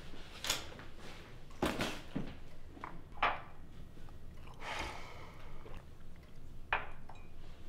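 Kitchen handling sounds: a handful of light knocks and clinks as things are picked up and set down, with a brief rustle or scrape about five seconds in.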